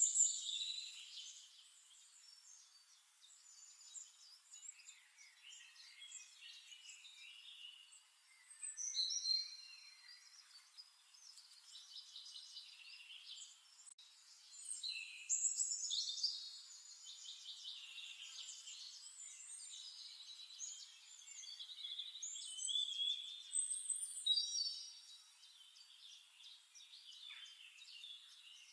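Birdsong: several small birds chirping and trilling in short, irregular phrases, with nothing heard in the low end.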